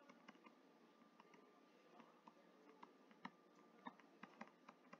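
Near silence with faint, irregular clicks of a stylus tapping and moving on a tablet while handwriting.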